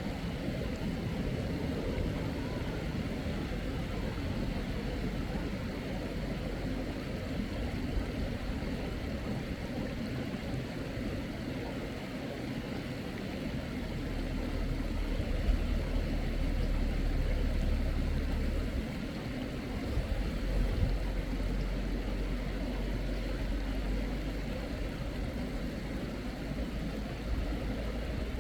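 Steady rushing of a mountain stream, with a low rumble that grows heavier from about halfway to two-thirds of the way through.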